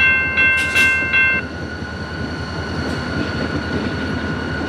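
Railroad grade-crossing warning bell ringing in a steady rhythm of about two and a half strokes a second, then stopping about a second and a half in. A low steady rumble carries on underneath.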